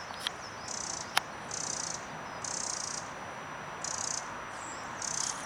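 European wren alarm calls: short, dry, high churring rattles repeated about once a second, five in all, the agitated scolding a wren gives at a predator such as a cat. A sharp click sounds a little over a second in.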